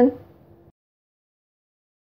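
A woman's voice finishing a last word, fading out, then complete digital silence once the audio cuts off abruptly under a second in.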